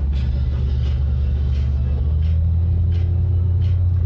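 Car driving along: a steady low engine and road rumble that grows slightly louder about halfway through.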